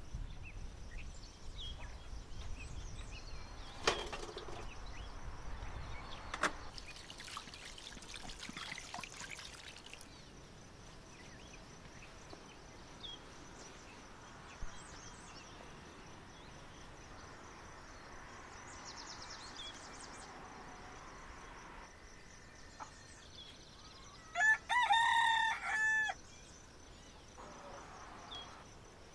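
A rooster crows once near the end, a loud call lasting about a second and a half. Before it there is rustling with two sharp knocks, and faint bird chirps in the background.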